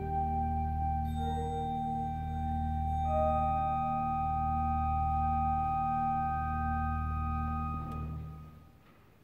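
Pipe organ and a wind soloist holding a long closing chord over a deep pedal note that swells and ebbs slowly, with higher notes joining about one and three seconds in. The chord releases near the end and dies away in the hall's reverberation.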